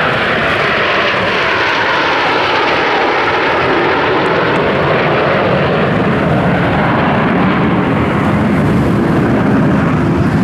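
A formation of nine Aermacchi MB-339 PAN jet trainers flying past, their Rolls-Royce Viper turbojets making a loud, steady roar. The tone has a slow swishing sweep in it and grows deeper near the end as the formation moves away.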